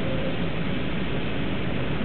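Steady road noise of a car driving on a wet road, heard from inside the cabin: an even hiss of tyres mixed with engine noise, with no distinct events.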